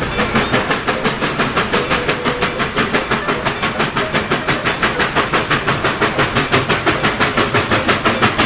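Steam train chuffing in a fast, even rhythm of hissing puffs.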